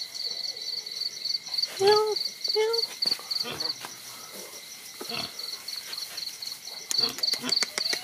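Crickets chirping steadily and rapidly in the background. About two seconds in come two short, falling cries from one of the young animals at play, followed by scattered knocks and scuffles.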